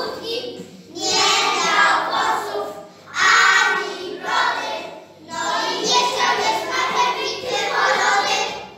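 A group of young children singing together in unison, in phrases of a second or two with short breaks between them.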